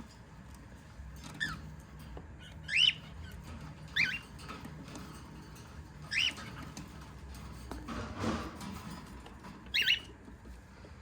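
Cockatiels calling: five short, loud calls, each a quick arch up and down in pitch, spaced a second or more apart. A brief rustle comes about eight seconds in.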